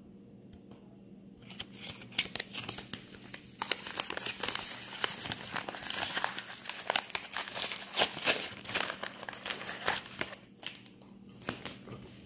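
Paper wrapping being unfolded and crinkled by hand, a dense crackling that starts about a second and a half in, pauses briefly near the end, and picks up again for a moment.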